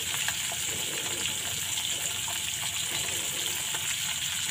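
Fish frying in oil in a wok on a portable gas stove, a steady sizzling hiss, with a few light clicks.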